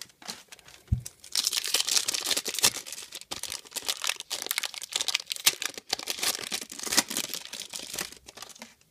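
A soft thump about a second in, then the foil wrapper of a trading card pack being torn open and crinkled in the hands, a dense crackly rustle.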